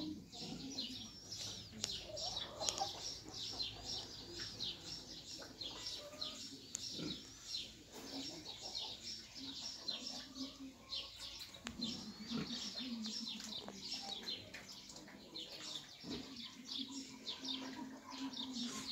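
Small birds chirping rapidly and continuously, with low farmyard animal calls underneath.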